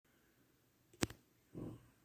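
A sharp click about a second in, then one short, low snore from a sleeping young girl.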